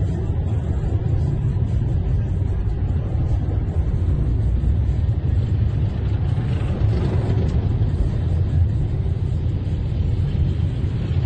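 Steady low rumble of vehicle engines and road noise heard from inside a car's cabin, with armoured military vehicles driving alongside.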